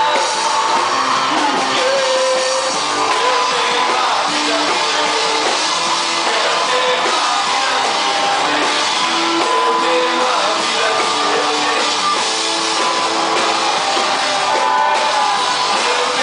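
Live rock band playing a worship song: a male lead singer over acoustic and electric guitars and drums, steady and loud.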